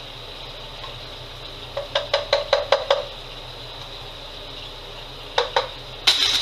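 A utensil rapping against a pan or pot: a quick run of about seven sharp taps, about six a second, then two more knocks and a louder clatter near the end, over a steady hum.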